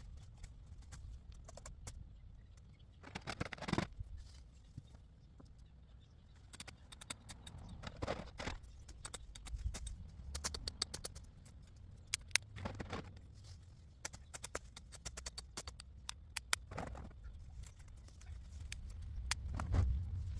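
Tree branches being cut and handled by hand: rustling of leaves and twigs with scattered clicks and snaps, and a louder swish about every four seconds.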